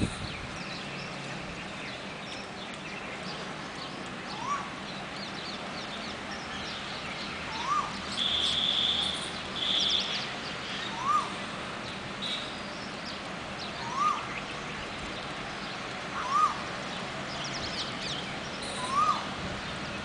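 An Asian koel calls six times, a short rising note about every three seconds, over the faint chirping of baya weavers feeding. Around the middle a high, thin, steady whistle sounds twice, each about a second long.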